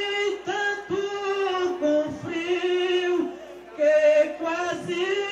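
A solo voice singing an improvised maracatu de baque solto verse, with long held, drawn-out notes broken by short pauses for breath.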